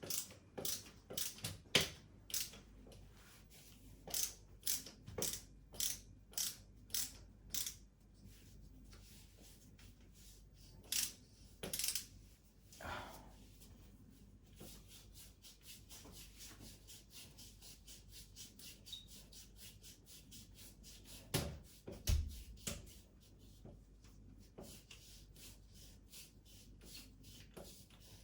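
Light metal clicking and knocking from hand work on a metal hanging rail. There is a steady run of sharp clicks, a couple of heavier knocks about halfway through, then a quicker, fainter run of clicks, several a second.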